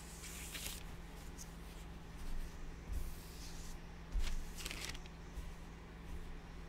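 Paper towel rubbing and wiping over plastic sheeting and paper, with scattered rustles and a few soft bumps.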